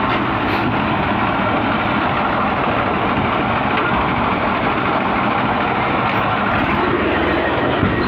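Tractor's diesel engine running steadily as the tractor drives along, heard from the trolley it is towing.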